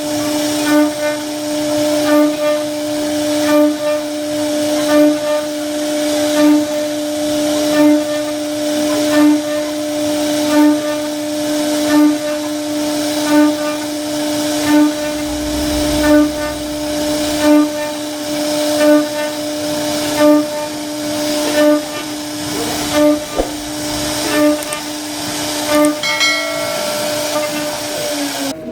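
CNC wood router spindle running at a steady high pitch while carving a wooden door panel, with the cutting noise swelling about every second and a half as the bit works through the pattern.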